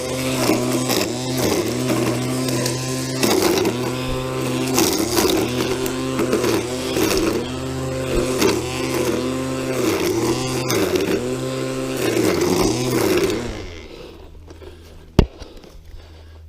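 Gas string trimmer (weed eater) running and cutting weeds, its engine pitch dipping and recovering again and again under load, then shutting off about 13 seconds in. A single sharp click follows a little later.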